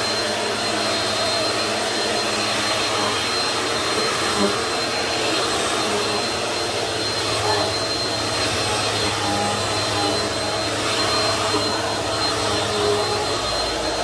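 Bissell PowerForce Helix upright vacuum cleaner running steadily while being pushed across carpet, set to its high-carpet height. Its motor makes a continuous rush with a thin, steady high whine on top.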